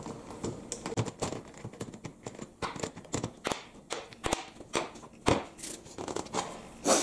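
A three-jaw scroll chuck from a Harrison lathe being wound open with its chuck key, steel jaws working out of the scroll with irregular metallic clicks and scrapes. The hardened steel jaws and the T-handle key are set down on a steel bench, with a sharp metal knock about five seconds in and another near the end.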